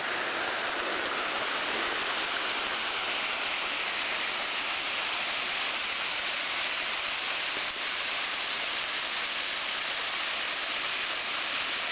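Waterfall about 10 feet tall pouring into a deep pool: a steady, even rush of falling water.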